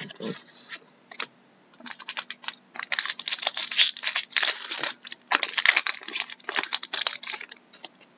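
Foil wrapper of a 2012-13 Fleer Retro hockey card pack being torn open and crumpled by hand. A brief rustle comes at the start, then a dense run of crinkling and crackling from about two seconds in until near the end.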